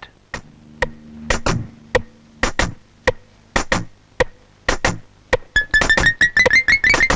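Synthesizer film-score music: a low held tone and sharp, widely spaced percussive hits. About two-thirds of the way through, a fast repeated high note comes in at about five notes a second.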